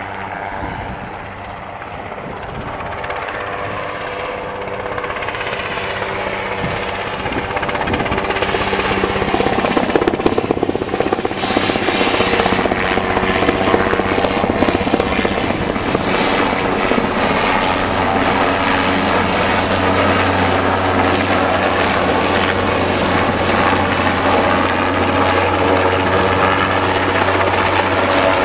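Lift helicopter's rotor and engine, growing louder over the first ten seconds or so as it comes in close, then a steady, loud drone as it hovers.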